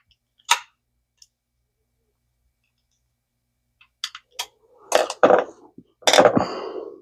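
Small parts of an ABU Garcia Ambassadeur 5501C3 reel clicking and clattering as it is taken apart by hand. One sharp click about half a second in, then a run of clicks and clattering knocks in the last three seconds.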